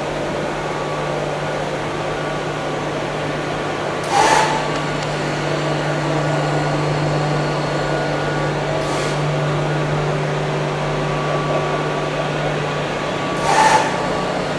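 Egg tray making machine running with a steady hum, broken by a short burst of hiss-like noise about every four and a half seconds; the bursts about four seconds in and near the end are the loudest.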